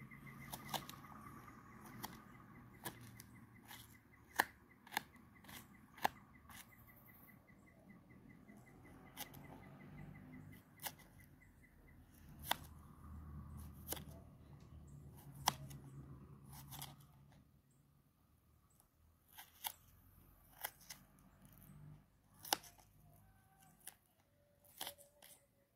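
Small knife slicing an onion over a plastic plate: irregular, sharp clicks, one or two a second, as the blade cuts through and taps the plate.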